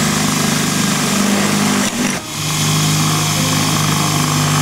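Cordless drill boring holes through an aluminum angle bracket, the motor running steadily under load. It stops briefly about two seconds in, then runs again for the next hole.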